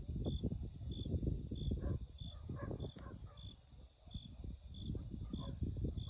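A cricket chirping in an even rhythm, about three short high chirps every two seconds, over an uneven low rumble.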